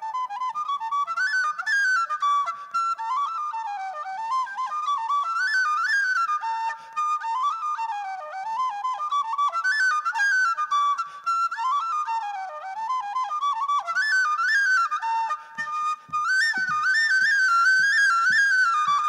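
Tin whistle played solo, a fast, heavily ornamented folk tune with quick runs up and down. Near the end a steady low thump about twice a second joins in, keeping the beat.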